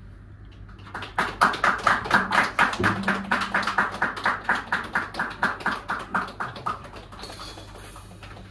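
Cross-stick clicks on a snare drum, the stick laid across the head and its butt striking the rim, in a fast even pulse of about five a second that fades out after about six seconds. A cymbal shimmer follows near the end.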